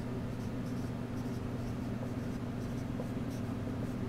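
Dry-erase marker scratching on a whiteboard in short handwriting strokes, over a steady low room hum.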